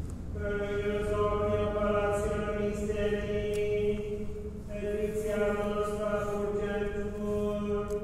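Latin plainchant of the Mass: a voice chanting long, held notes on a near-steady pitch, stepping between a few notes, with a pause for breath about four seconds in. It rings in the church's reverberant nave.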